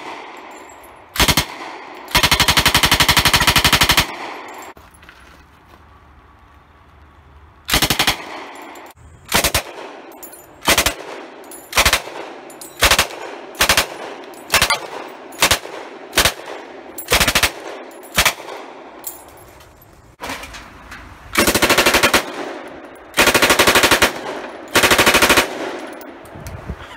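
1943 Thompson M1A1 submachine gun firing .45 ACP on full auto. A short burst comes first, then a long burst of about two seconds. It is followed by a string of short bursts of a few rounds each, roughly one a second, and then three longer bursts near the end.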